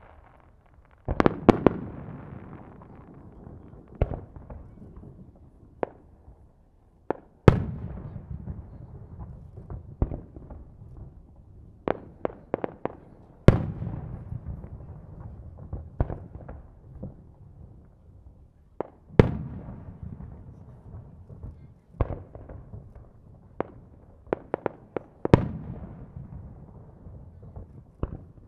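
Aerial firework shells bursting in a series of loud bangs a few seconds apart, each followed by a long rolling echo. Quick runs of smaller cracks come in between.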